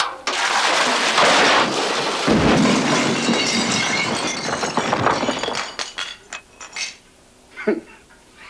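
A bathtub crashing through the floor: a long, loud crash of breaking and clattering debris, with a heavy thud about two seconds in. It dies away after about six seconds, leaving a few scattered knocks.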